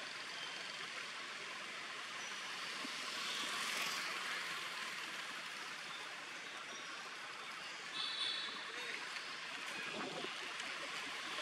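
Steady forest background hiss, with a brief high chirping call about eight seconds in.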